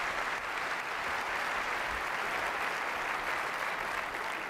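A large conference audience applauding steadily, dying away just after the end.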